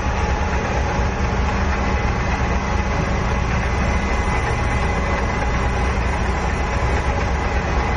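Universal lathe running steadily, its chuck spinning, a steady low hum with a few faint higher tones over it, while a light turning cut is fed by hand.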